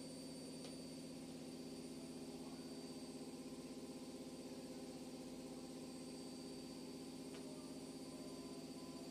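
A faint, steady low hum made of several held tones, unchanging throughout, with a couple of faint ticks.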